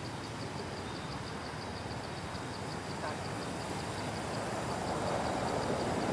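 Outdoor background noise: a steady rush that grows somewhat louder in the second half, with a faint high pulsing about four times a second.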